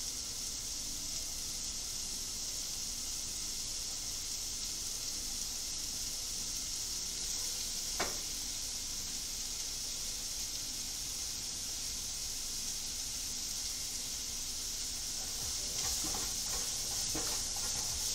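Food sizzling steadily in a hot soup pot, with one sharp click about eight seconds in and a few light knocks near the end.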